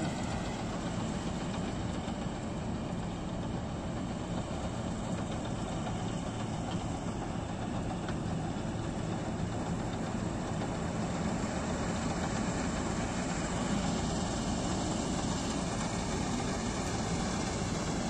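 Preet 987 combine harvester running steadily as it cuts standing wheat, a constant engine drone.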